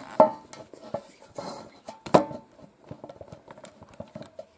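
Kitchen clatter of dishes: two sharp clinks with a short ringing, one near the start and one about two seconds in, among lighter knocks and taps.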